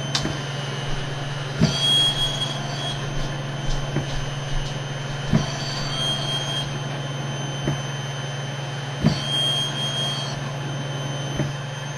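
Cough assist machine (mechanical insufflator-exsufflator) cycling over a steady blower hum, about every four seconds: a soft click as the inhale starts, then a second and a half later a thump and a rush of air lasting over a second as it switches to exhale, then a short pause. Three such cycles, paced by inhale and exhale set at about one and a half seconds each with a one-second pause.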